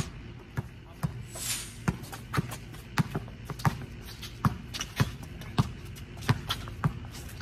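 A basketball being dribbled on a concrete court: about a dozen sharp bounces, roughly one every half second.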